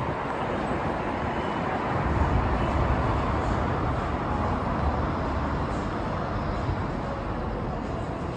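Street ambience of road traffic: a steady wash of passing vehicles with a low rumble.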